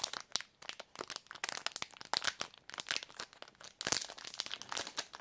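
Plastic packaging crinkling and crackling in the hands as a packaged eraser is turned over and handled, a quick irregular run of crackles.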